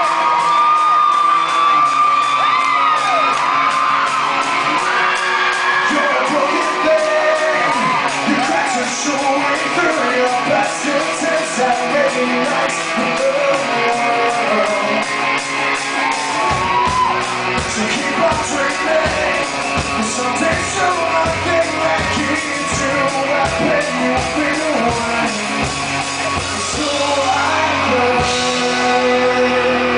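Live rock band performing, a male lead voice singing over the instruments, with audience whoops and shouts. The bass and drums come in about halfway through.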